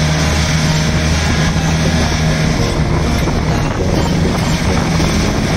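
Boat engine running steadily at speed, a constant low hum over the rush of water and air past the boat.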